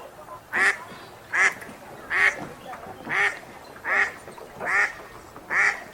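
A wild duck quacking in a steady series: seven quacks, a little more than one a second, evenly spaced.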